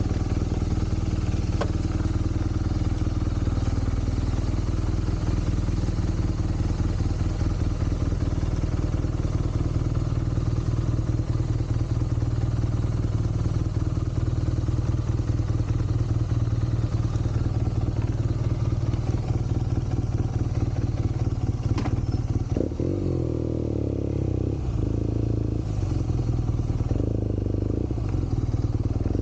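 BMW R nineT Scrambler's 1170 cc boxer twin running at low speed as the bike pulls out and rolls along, with a steady low engine note; the engine note changes about three-quarters of the way through.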